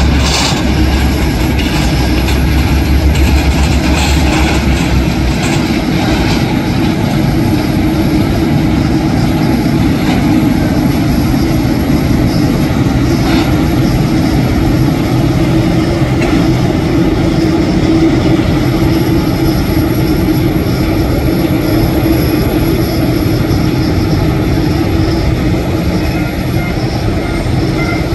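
Boeing 787's GEnx turbofan engines running at taxi power as the airliner rolls past. The sound is steady jet engine noise with a faint high-pitched whine.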